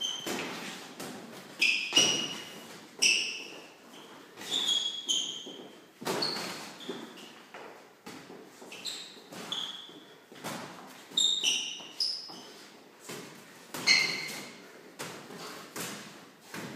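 Trainers squeaking and scuffing on a hard floor as two boxers move about, with soft thuds of gloved punches landing in light sparring. Short, irregular squeaks and knocks come every second or so.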